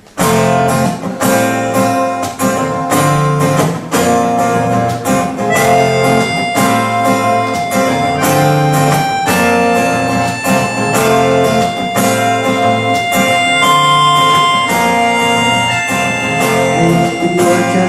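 A live acoustic band plays the instrumental intro of a pop song: acoustic guitar strumming in a steady rhythm over bass and percussion. Held notes join in about five seconds in.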